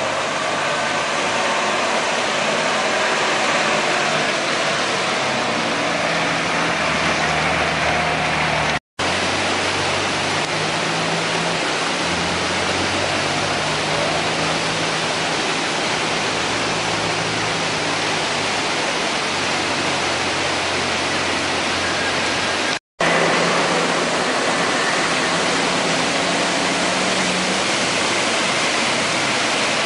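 Swollen Tequisistlán river rushing after heavy rain: a steady, dense noise of fast-flowing water, broken twice by a brief silent gap where the recording cuts.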